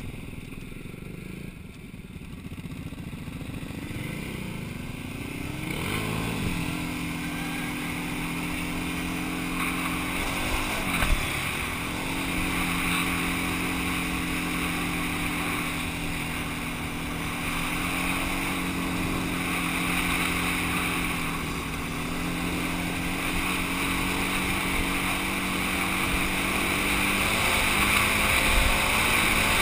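Quad (ATV) engine running under steady throttle while riding a gravel trail, over a steady hiss of wind and tyres. The engine note settles in about six seconds in, dips briefly about ten seconds in as the throttle comes off, then holds with small changes in pitch.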